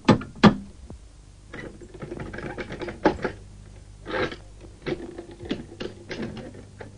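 Metal door fittings being worked by hand: bolts and latches sliding and clacking. Two sharp, loud knocks at the start, then a run of irregular clicks and rattles.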